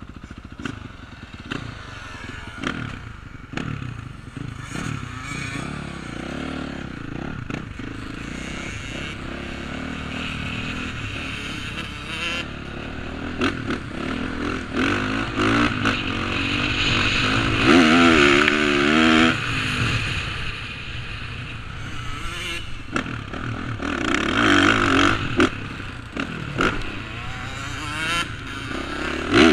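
Dirt bike engine running hard on a motocross track, heard from the rider's helmet camera, its revs rising and falling again and again through the corners and straights. Rattling of the bike over the rough track mixes in.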